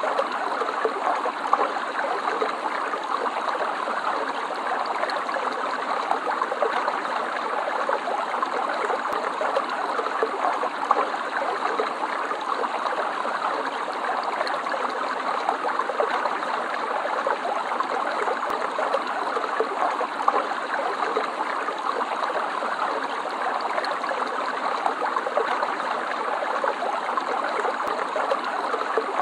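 Stream water flowing and babbling steadily.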